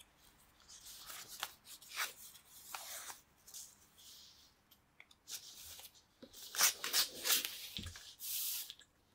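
A sheet of paper being folded and its crease pressed and rubbed by hand: irregular paper rustling and rubbing, busier in the second half, with a longer rub near the end and a soft thud.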